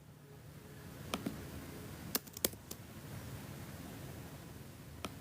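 A few scattered clicks of computer keys, in small groups with pauses between, over a faint steady hiss.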